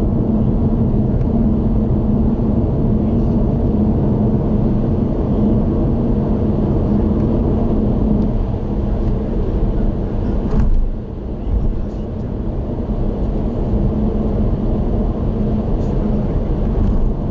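Steady road and tyre rumble with an engine hum from a car cruising on an expressway. About ten seconds in there is a brief louder swell, then the noise dips for a moment.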